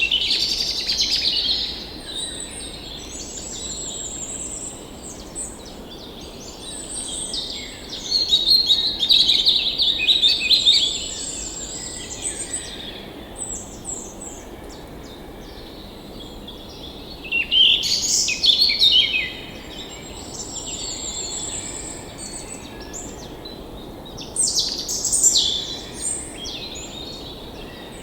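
Several birds chirping and trilling, in busier spells that come and go, over a faint steady hiss.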